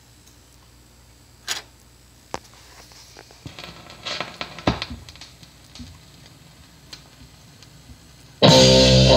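Vinyl record on a turntable: a few clicks and crackles of the stylus in the groove over a low hum, then about eight and a half seconds in the record's music starts suddenly and loudly, led by electric guitar.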